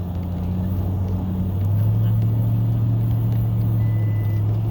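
Motor vehicle engine running steadily with a low hum. A brief high beep sounds near the end.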